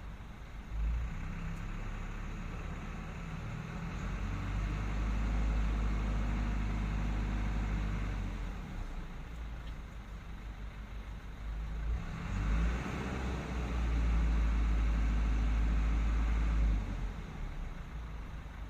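Diesel engine of a heavy construction machine running, twice rising in loudness for several seconds as it works under load and then dropping back.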